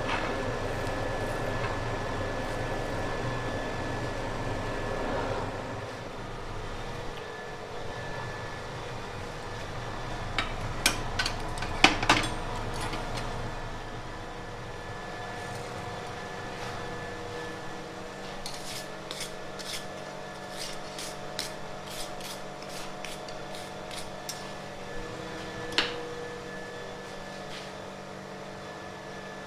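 Coal forge blower running with a steady hum and rush of air, the rush dropping after about five seconds while the hum carries on. Light metallic clinks and knocks of steel tools come through it: a cluster of sharper ones about eleven to twelve seconds in, a quick run of small ticks around twenty seconds, and one more near the end.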